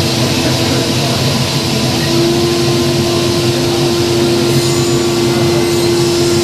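CNC machine running: a loud, steady mechanical hum with a steady whining tone that grows stronger about two seconds in.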